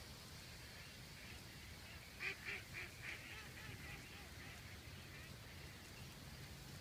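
Ducks in a large flock calling: a quick run of about half a dozen quacks a couple of seconds in, loudest at the start and trailing off.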